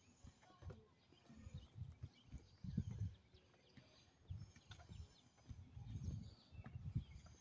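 Wind buffeting the microphone in irregular low rumbles, with faint bird chirps in the background.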